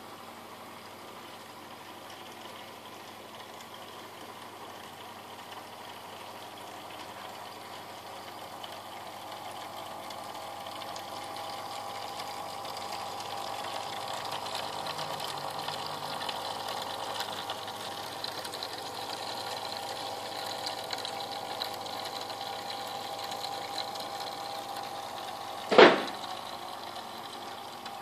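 Small electric pump and trickling water of a model fountain in a nativity scene, running steadily and getting louder in the middle. A single sharp knock about 26 seconds in.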